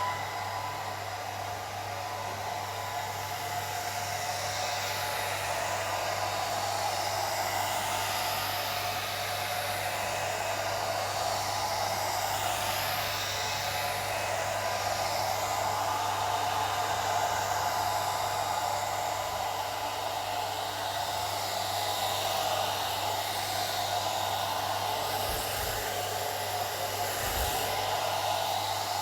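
Old hair dryer running steadily: a constant rush of air over a low, even motor hum.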